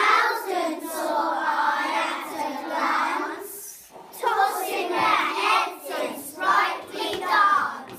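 A group of young children singing a song together: one long held phrase, a short dip about four seconds in, then several shorter sung phrases.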